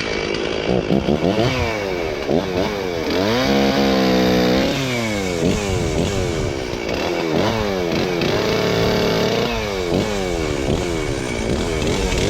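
Stihl 036 Pro two-stroke chainsaw running, its throttle blipped so the engine revs rise and fall many times, with a few stretches held at high revs for a second or so.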